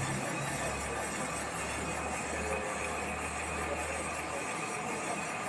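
Machine tool facing aluminium with a PCD insert: a steady machining noise with a low hum that stops about four seconds in.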